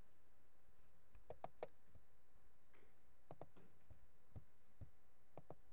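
Faint, scattered clicks of keys being typed on a computer keyboard, coming a few at a time with short pauses, over a low steady hum.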